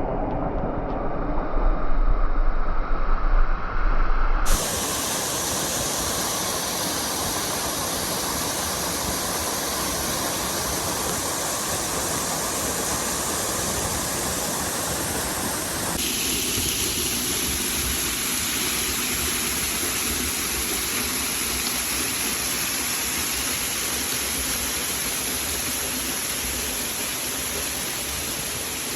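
Waterfall: a steady rush of falling water, its tone changing abruptly about four and a half seconds in and again about sixteen seconds in. The first few seconds are a deeper, uneven rumble with gusty swells in loudness.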